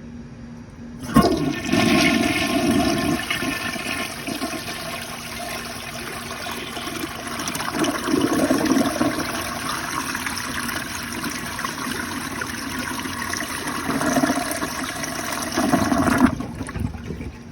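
1965 Rheem Claymore toilet flushing with the seat down: a sharp start about a second in, then a rush of water through the bowl for about fifteen seconds that stops abruptly near the end.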